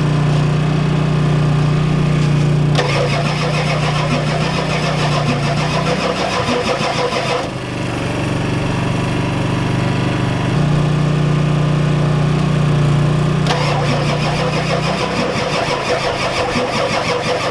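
A 7.3L IDI diesel engine being cranked over by its starter in two long attempts of about four seconds each, turning over rhythmically without catching. A steady low hum runs underneath. The engine is not getting fuel through the injectors, which the owner puts down to a weak injection pump.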